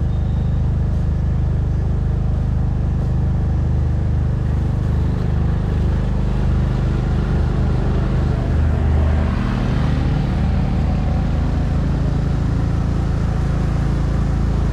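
Motorcycle engine running while riding, a steady low drone with road and air noise, swelling a little about nine seconds in.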